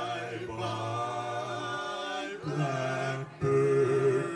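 Male vocal quartet singing a cappella, holding wordless chords in close harmony. The sound dips briefly about two and a half seconds in and again a second later, then comes back as a louder chord near the end.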